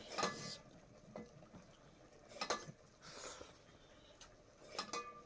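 Spoons and other utensils clinking and scraping on metal plates during a meal: a few separate sharp clinks with brief ringing, one near the start, one in the middle and a pair near the end.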